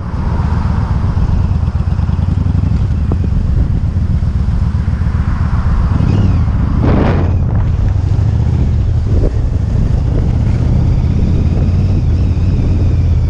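Motorcycle engine running steadily while riding, with wind rushing over the microphone and a brief louder whoosh about seven seconds in.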